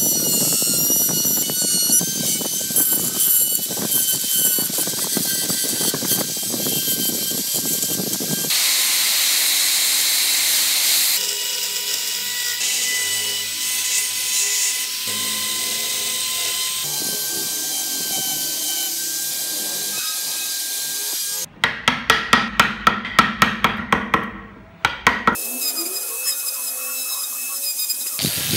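Handheld rotary tool with a small burr grinding into wood: a steady motor whine over the rasp of the cutting, its pitch shifting between shots. About three-quarters of the way through, a quick run of sharp taps, about four a second, lasts some three seconds.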